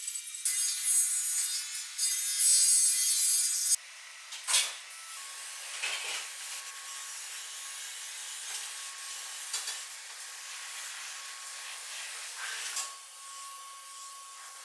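A paint sprayer hisses steadily for about four seconds and cuts off abruptly. Then comes steady rubbing on wood, with a few louder strokes.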